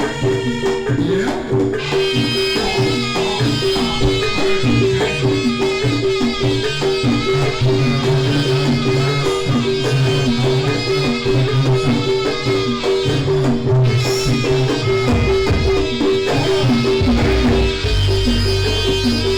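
Live jaranan (jaran kepang) ensemble music: drums and tuned percussion playing a fast, steadily repeating pattern.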